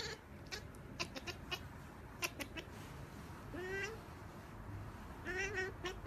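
Kitten meowing: two short rising meows, about three and a half and five seconds in, with scattered light clicks between them.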